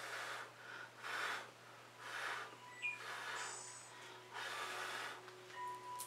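A person blowing several short puffs of breath, about a second apart, onto wet fluid acrylic paint to push it out across a canvas.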